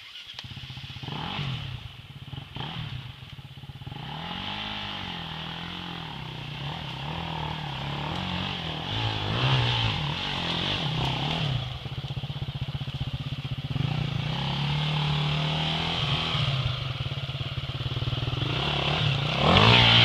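An off-road vehicle's engine running and revving up and down repeatedly over uneven ground, with some rattling. It grows louder toward the end.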